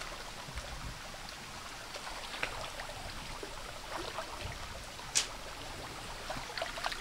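Muddy creek water flowing steadily around a person wading waist-deep in it, with small splashes and sloshes and one sharp tick about five seconds in.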